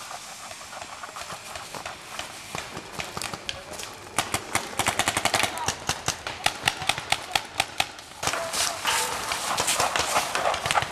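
Paintball markers firing in rapid strings of sharp pops, scattered at first and coming thick and fast from about four seconds in.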